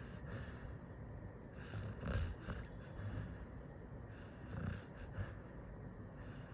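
Labrador dog snoring in its sleep, slow breaths with a low snore about every two to two and a half seconds, the loudest about two seconds in.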